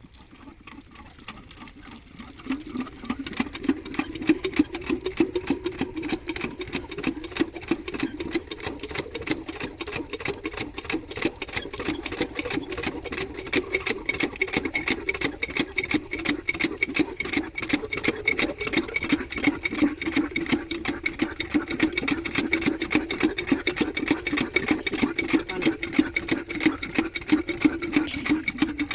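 Single-cylinder diesel engine of a water pumpset running with a fast, even clatter. It comes up about two seconds in and then holds steady.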